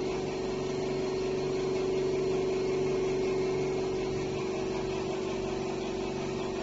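Automatic checkweigher's belt conveyor running, its electric drive motors giving a steady hum with one strong mid-pitched tone.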